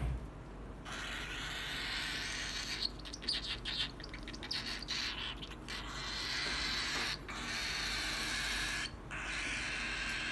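Lutino cockatiels making harsh, raspy noise, broken into quick short bursts a few seconds in, then held in longer stretches.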